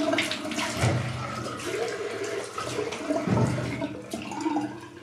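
Water running from a bathroom tap into the sink, with irregular splashing as the face is wetted between shaving passes.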